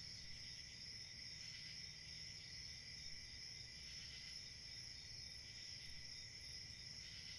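Near-silent background with a faint, steady, high-pitched insect-like drone.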